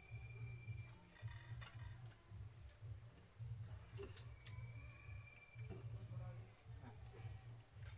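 Faint, scattered clicks and light metallic clinks of people eating with their fingers out of metal bowls and plates, over a low steady hum.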